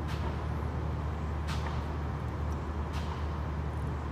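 Steady low mechanical hum, with two short clicks about a second and a half apart.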